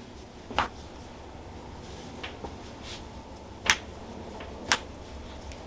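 Three loud, sharp pops at uneven intervals, with a faint one between the first two: joints cracking (cavitating) under a chiropractic adjustment.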